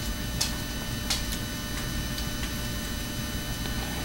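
Steady low hum and rumble, with a few faint, irregular ticks.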